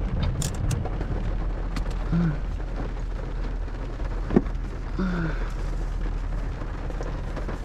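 Rain falling on the truck, heard from inside the cab as a steady hiss over a low steady hum. A sharp click about four seconds in.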